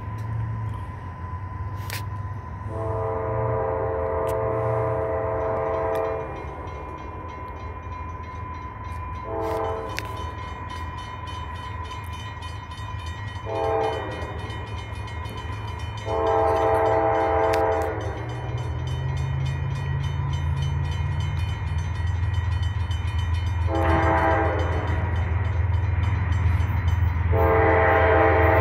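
Freight locomotive horn sounding as the train approaches unseen: six blasts, each a chord of several notes, long, short, short, long, short, long. Underneath, the low rumble of the diesel locomotives grows steadily louder.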